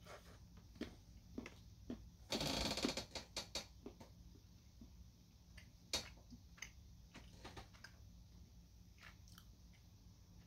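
Dark chocolate bark being bitten and chewed close to the mouth: a dense run of crunches about two seconds in, then scattered crisp clicks, the sharpest about six seconds in.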